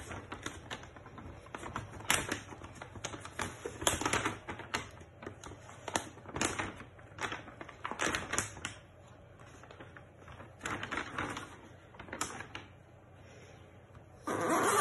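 Adhesive backing paper being peeled off a self-adhesive sheet and the sheet pressed down by hand: irregular bursts of crackling and rustling, with a louder burst near the end.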